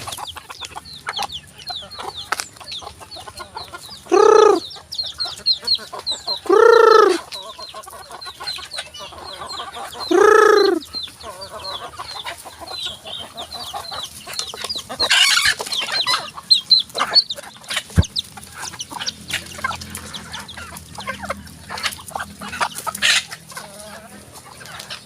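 Chickens clucking, with three loud drawn-out calls about four, seven and ten seconds in, amid many short clicks and chirps.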